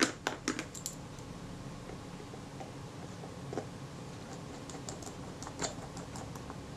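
Small metal clicks of tiny screws and a fine screwdriver on a lens's metal mount plate as the screws are set and driven in: a quick cluster of sharp clicks at the start, then a few faint ticks seconds apart.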